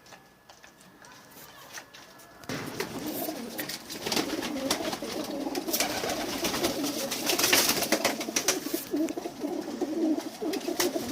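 Domestic pigeons cooing together, a continuous overlapping cooing with scattered sharp clicks. It starts faint and grows much louder about two and a half seconds in.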